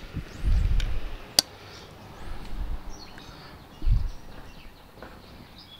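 Fork clicks and low muffled thumps close to a clip-on mic as cake is cut and eaten off a plate. Faint bird chirps sound behind.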